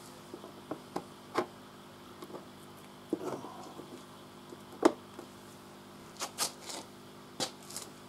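Scattered clicks and light knocks of hands handling hoses and a tap among potted tomato plants, irregular, the loudest about five seconds in, over a faint steady hum.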